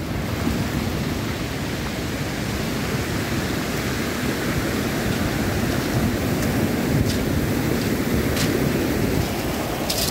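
Surf washing in and out over a pebble beach, a steady rushing hiss with a low rumble of wind on the microphone. A few short sharp clicks come in the second half.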